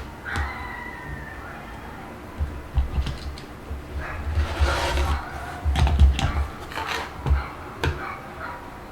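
Fabric pieces and cutting tools handled on a work surface while squares are cut on the diagonal: an irregular run of clicks, taps and low knocks, with a brief rasping cut about halfway through.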